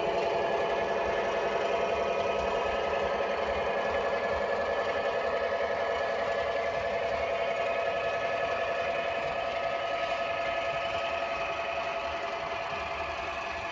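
Model railway locomotive running along the track: a steady mechanical drone with several held tones, easing slightly near the end.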